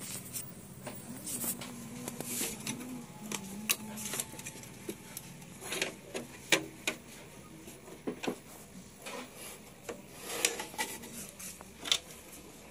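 Irregular clicks, light knocks and rustling as wires, connectors and plastic parts of an opened CRT television chassis are handled and moved.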